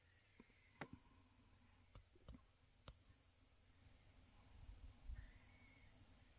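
Near silence: a faint, steady high insect drone, with a few faint clicks in the first few seconds.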